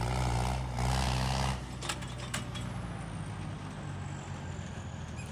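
Diesel tractor engines running under load, louder for the first second and a half and then dropping back, with a couple of sharp clicks about two seconds in.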